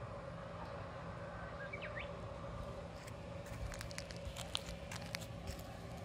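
Steady low outdoor background rumble, with a run of small sharp clicks and ticks in the second half as the handheld camera is moved about.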